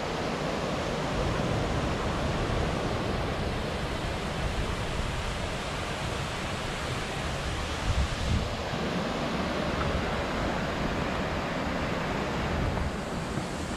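Small waterfall cascading into a rock pool, a steady rush of water, with wind rumbling on the microphone and a brief louder gust about eight seconds in.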